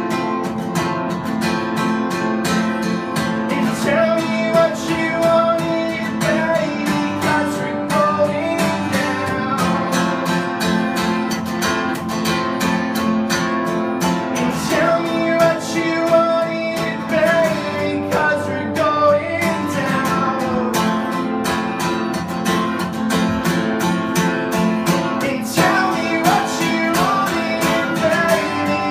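Acoustic guitar strummed steadily, with a man singing a wordless melody over it that comes in about four seconds in and recurs.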